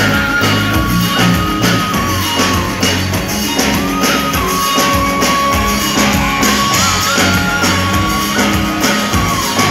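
Live band music at a pop concert, heard from the audience: drums and guitar keep a steady beat under a held melody line that slides between notes.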